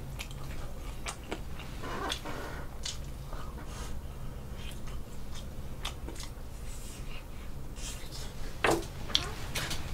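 A person biting and chewing a piece of fried chicken close to the microphone: soft mouth sounds with scattered small clicks, and a sharper bite near the end.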